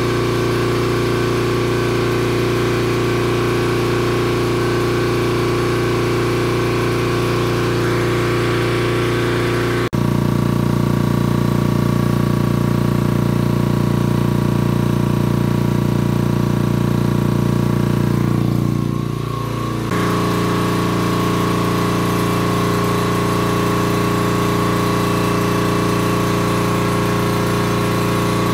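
Hamworthy V250 two-stage marine air compressor running steadily as it builds air pressure. The tone changes abruptly about ten seconds in and again near twenty seconds.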